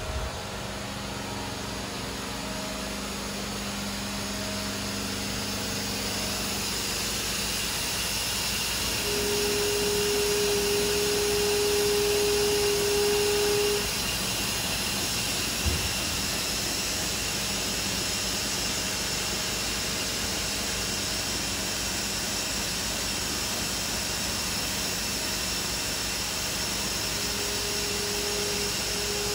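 2006 Hurco VMX50 vertical machining center powered up and running with a steady whir. A steady whine sounds for about five seconds near the middle, then cuts off, and comes back near the end as the table is jogged along its axis. A single short knock comes just after the first whine stops.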